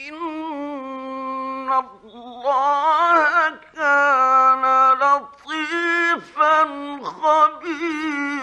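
A man chanting the Quran in melodic tajweed recitation from an old 1950s radio recording. He holds long notes with wavering, ornamented turns of pitch, in phrases of one to two seconds broken by short breaths.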